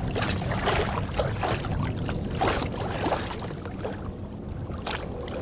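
Water lapping against a kayak's hull, with irregular soft knocks and a low steady hum underneath.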